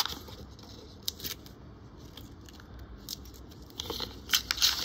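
Australian one-dollar coins being handled: scattered light clicks and scrapes of metal on metal, with a quick run of clicks near the end.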